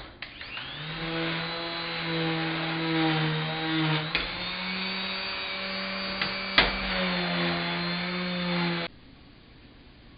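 Electric power tool motor running for about eight seconds with a steady hum. Its pitch steps up about four seconds in and drops back around seven seconds as the load changes. A few sharp clicks mark the run, which then cuts off abruptly.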